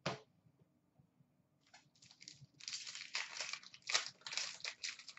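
Foil wrapper of an Upper Deck SP Authentic hockey card pack crinkling and tearing as it is opened by hand: a quick run of irregular rustles that starts about two seconds in.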